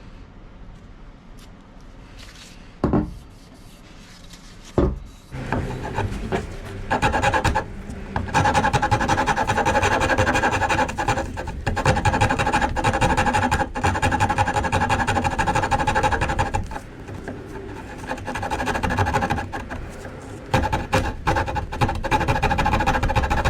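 Hand rasp scraping a wooden axe handle, shaping the grip. Steady, fast rasping strokes start about five seconds in, after two sharp knocks, and ease off briefly past the middle.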